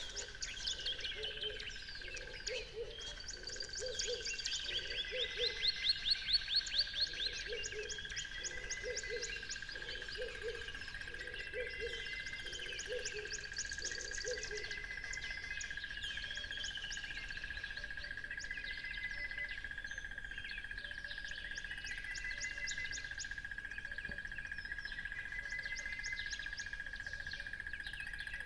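Several birds chirping and trilling together in quick, overlapping phrases, over a steady high tone. Through the first half a lower call repeats about once a second, then stops.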